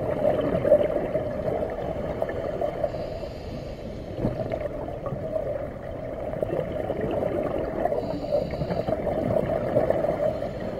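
Scuba regulator breathing heard underwater: a steady gurgle of exhaust bubbles, with two hisses about five seconds apart as the diver inhales.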